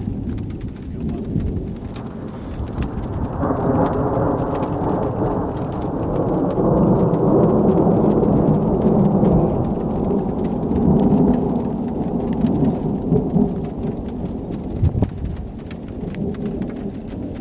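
Long, rolling peal of thunder from a thunderstorm's anvil. It swells about three seconds in, is loudest through the middle and dies away near the end.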